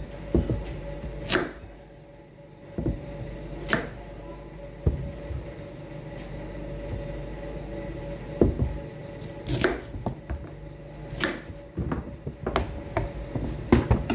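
Kitchen knife cutting carrots on a cutting board: irregular sharp knocks of the blade against the board, a few seconds apart, then quicker together near the end, over a steady faint hum.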